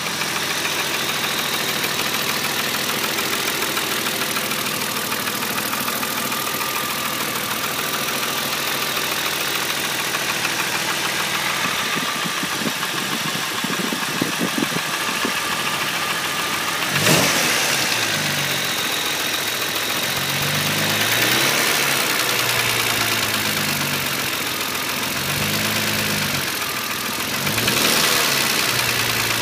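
BMW E36 M3's 3.0-litre S50 straight-six idling steadily, then revved gently several times at low revs from a little past halfway. A knock or tick runs with it, which the owner places around the inlet manifold and cannot yet explain.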